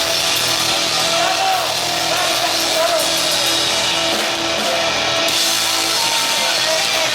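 Live rock band playing at a steady, loud level, with electric guitar and drums.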